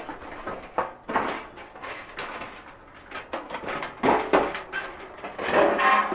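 Sheet-metal clattering, knocking and scraping as the Coleman camp stove's burner assembly is worked loose and lifted out of its steel case, with a short metallic ring near the end.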